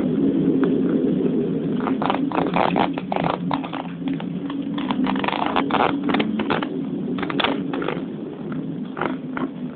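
Vehicle driving down a winding mountain road: a steady low engine and road drone, with many short crackles and knocks over it.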